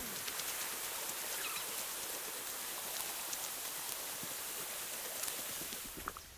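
Small mountain creek running over rocks: a steady hiss of rushing water that eases off near the end.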